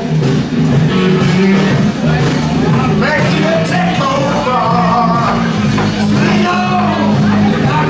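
Live rock band playing loudly: electric guitar and bass chords under a man singing and shouting into a microphone through the PA, the vocal line strongest in the middle of the stretch.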